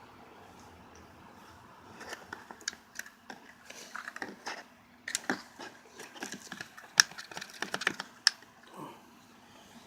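Pet turtle feeding on worms: an irregular run of sharp clicks and taps, likely its beak and shell knocking against a hard container, starting about two seconds in and stopping a second or so before the end.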